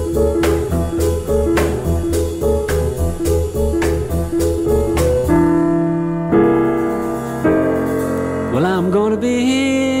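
Jazz music with piano, bass and drums in a steady beat. About five seconds in it gives way abruptly to sustained held notes, with a sliding pitch near the end.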